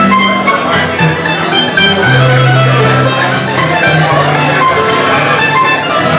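F-style mandolin picking quick runs of notes over acoustic guitar holding lower, sustained notes: an instrumental break with no singing.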